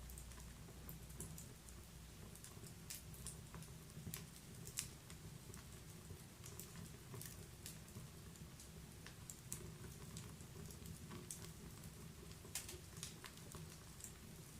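Wood fire in a fireplace crackling: faint, irregular pops and snaps over a low, steady rumble, one pop about five seconds in louder than the rest.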